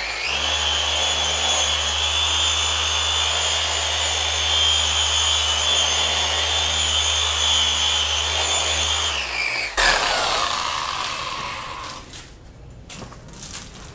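Porter Cable dual-action polisher with a finishing pad running at a steady speed, polishing out swirls in car paint, then switched off about nine seconds in and winding down with a falling whine. A few faint clicks follow near the end.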